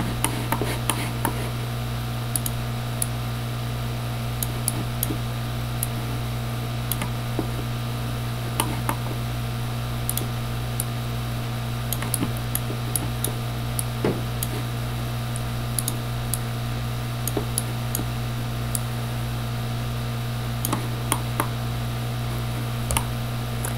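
Scattered computer mouse clicks, short and irregular, over a steady low electrical hum.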